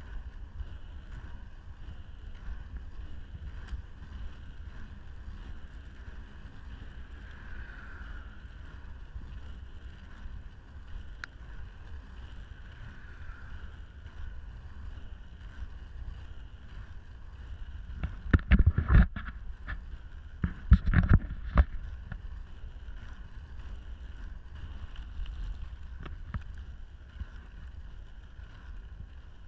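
Inline skate wheels rolling on an asphalt path, a steady low rumble with some wind on the microphone. Two bursts of loud rattling knocks break in about two-thirds of the way through, one after the other.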